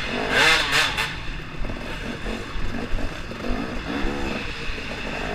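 KTM 250 XC-W two-stroke dirt bike engine revving up and down as the rider works the throttle through the trail, heard from the bike's onboard camera. A loud rush of noise comes about half a second in.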